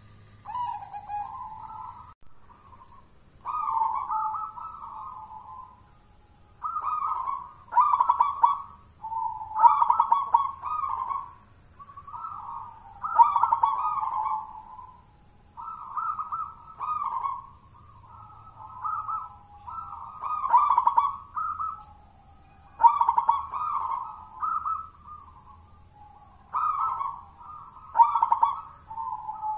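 Local Indonesian zebra dove (perkutut) singing in a cage: a steady run of short, rolling cooing phrases, one every second or two, in the thick-voiced style the uploader prizes in this bird.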